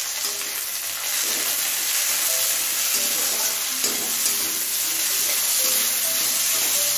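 Chopped tomato sizzling steadily in hot oil with onions in a kadai while being stirred.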